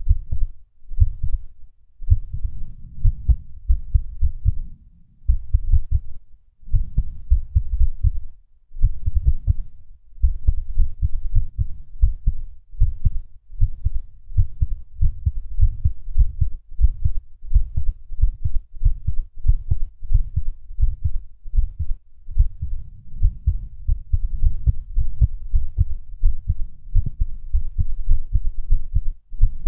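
A man's heartbeat recorded close up: a run of low beats in an uneven rhythm with a few short pauses where beats drop out, the skipped beats of an irregular heartbeat.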